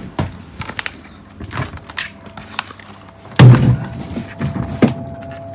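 Clicks and knocks of deer meat being handled and set into an aging refrigerator, with one heavy thump a little past halfway; a faint steady hum comes in near the middle.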